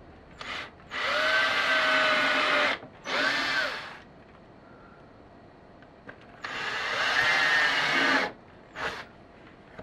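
Cordless drill whining in bursts as it pre-drills pilot holes with a 5/64-inch bit into the window frame for the blind brackets: a brief blip, a run of about two seconds, a shorter run that speeds up and slows down, then after a pause another two-second run and a last short blip.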